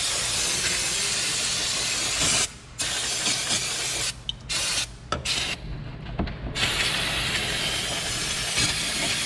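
Aerosol brake cleaner spraying in long hissing bursts, with a few brief breaks between them.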